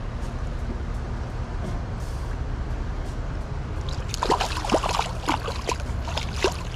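Steady low rush of river water, with a burst of splashing at the surface about four seconds in that lasts a couple of seconds.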